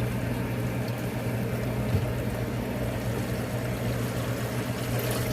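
Water poured from a plastic bottle into a Summit ice maker's drain bucket, over the steady hum of the running ice maker.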